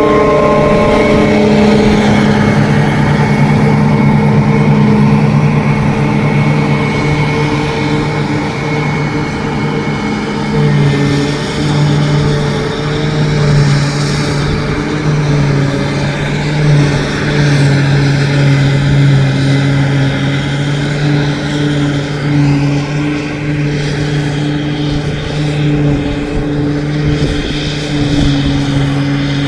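New Holland self-propelled forage harvester running, a steady loud engine drone as it chops grass into a trailer alongside. Its pitch drops a little about ten seconds in.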